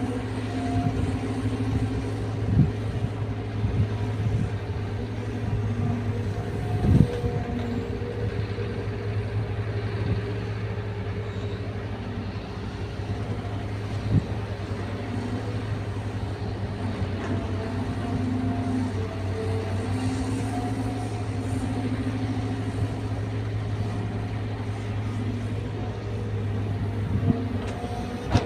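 Caterpillar 320 hydraulic excavator's diesel engine running steadily under work, with a whine that comes and goes as the hydraulics are worked. A few knocks stand out, the loudest about seven seconds in.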